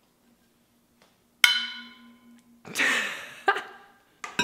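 A metal water bottle knocks against a stone countertop once, a ringing clink that dies away quickly. It is followed by a short rustle and a couple of small clicks.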